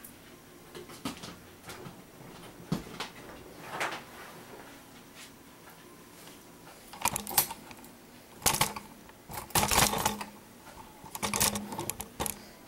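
Handling noise in a kitchen: scattered knocks and clicks, then dense clusters of clatter and rustling in the second half.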